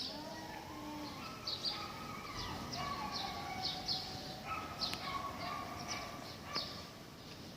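Cats yowling at each other in long, drawn-out, wavering calls, the low moaning of a standoff before a fight. Birds chirp in short high notes throughout.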